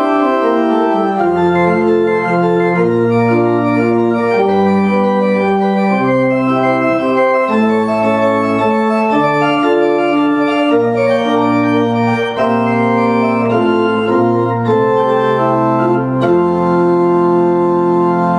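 Pipe organ playing slow, sustained chords that change every second or so, ending on a long closing chord held through the last couple of seconds.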